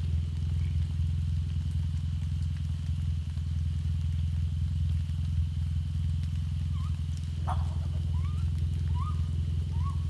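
Raccoons in a tree giving a run of about five short rising squeals, starting around seven seconds in, over a steady low hum.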